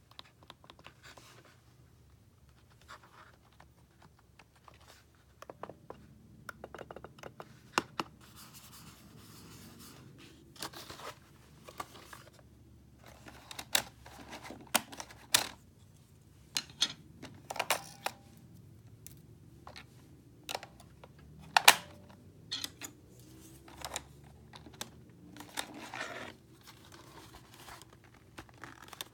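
Logitech K400 Plus wireless keyboard being handled and turned over on a wooden tabletop: scattered plastic clicks, taps and scraping, starting about five seconds in, with a handful of sharper clicks.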